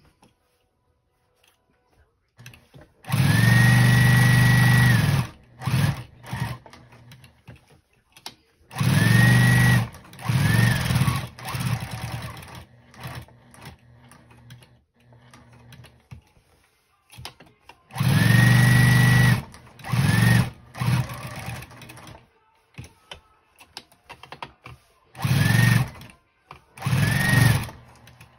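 Electric sewing machine stitching through layered denim in stop-start runs: several longer runs of a second or two and shorter spurts between them. Each run has a motor whine that rises as it speeds up.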